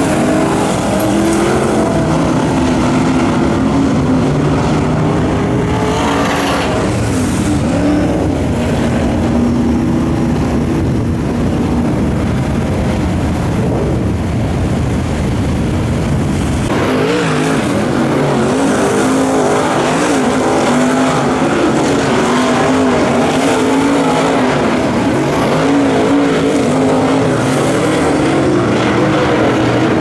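Dirt late model race cars' V8 engines running at speed around a dirt oval, several cars on track at once, their engine notes rising and falling as they pass. The sound is loud and continuous, and the deepest rumble thins out a little past halfway.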